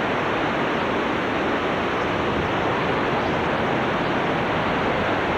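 Hurricane Katrina's wind and rain: a steady, loud rushing noise.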